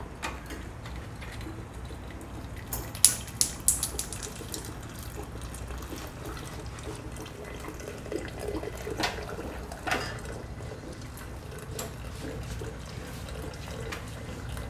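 Hot rinse water draining from a water dispenser's rear drain outlet into a glass jug, a steady trickle. A few sharp clicks come about three seconds in and again near nine and ten seconds.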